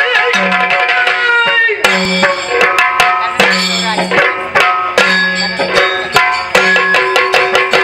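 Yakshagana accompaniment: maddale and chende drums played in a brisk, even rhythm over a steady harmonium drone note, with deeper drum strokes returning about every second and a half.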